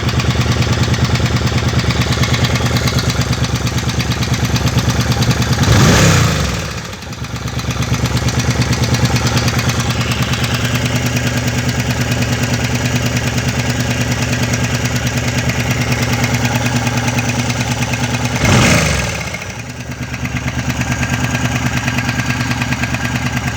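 Suzuki C50 Intruder's 805 cc V-twin idling with a knock from the timing chains, its throttle blipped twice, about twelve seconds apart, each time rising briefly and dropping back to idle.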